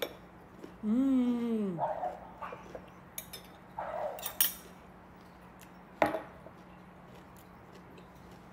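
Cutlery clinking against a plate while eating, with a few sharp clicks, the loudest about six seconds in. About a second in comes a short hummed 'mmm' of enjoyment that rises and then falls in pitch.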